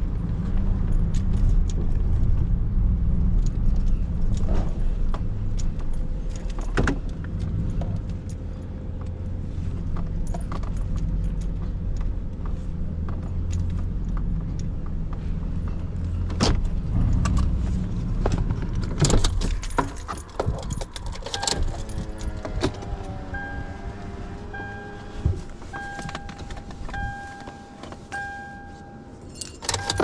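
Vehicle driving, a steady low rumble with loose gear rattling and clinking. About two-thirds of the way through the rumble stops, a few falling tones sound, and then a beeping chime repeats about once a second.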